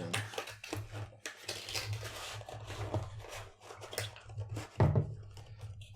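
Hands handling a perfume box and its packaging: scattered rustling, tearing and small clicks, with a dull knock about five seconds in.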